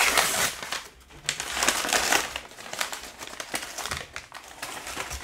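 Brown kraft paper wrapping being torn open and crumpled by hand, in several bursts of ripping and rustling, loudest in the first couple of seconds.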